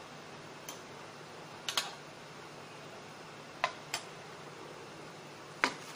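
Dishes clicking and knocking lightly as they are handled on a tabletop. There are about six short, sharp clicks: a close pair at about two seconds, another pair a little later, and the loudest single click near the end, over a steady low hiss.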